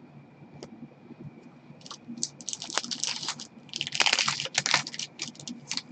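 Hockey trading cards handled by gloved hands: crisp rustling and clicking as cards slide and tap against one another. It starts about two seconds in and is loudest a little past the middle.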